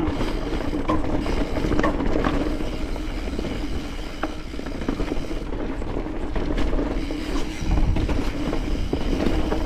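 Mountain bike rolling down a rocky dirt singletrack: tyre rumble with scattered knocks and rattles over roots and rocks, wind on the microphone, and a steady buzz throughout.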